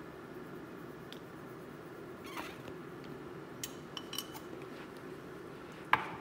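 A spoon clicking against a small seasoning jar a few times, with the loudest knock near the end, over a steady low hum.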